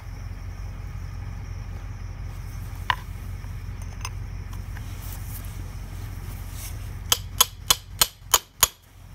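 Six sharp metal-on-metal hammer blows on a punch, about three a second, near the end, driving the locking wedge out of a stuck PTO shaft coupler's collar. A low steady rumble underneath.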